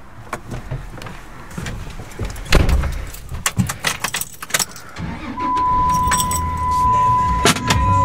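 Car keys jangling with a series of sharp clicks and knocks as a driver settles into a pickup truck's seat. About five seconds in, a steady low rumble and a steady high tone begin.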